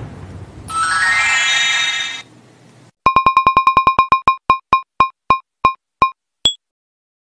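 Electronic sound effects: a quick rising run of tones, then a string of short beeps at one pitch that start rapid and slow down, ending in a single higher ping.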